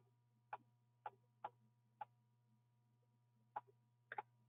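Faint, irregular light clicks, about eight in all, of a stylus tapping onto a pen display during handwriting, over a faint steady hum.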